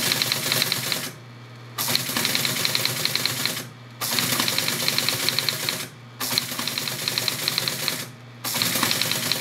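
ASR-33 Teletype printing in clattering bursts of about two seconds, one line at a time, with short pauses between lines while its motor keeps humming underneath.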